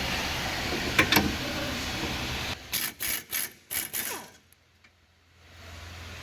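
A pneumatic tool fires in about five short, sharp bursts, the last one falling away in pitch. Before the bursts there is a steady noise with two clicks about a second in.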